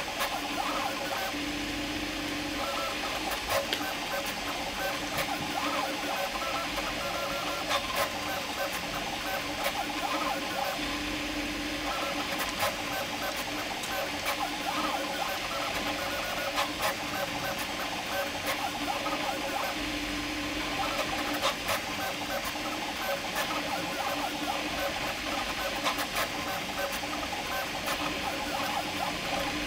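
Prusa MK4 3D printer printing at speed: its stepper motors buzz and whine in quick, shifting tones as the print head darts about, over a steady hiss, with frequent small ticks. A low hum swells briefly about every nine seconds.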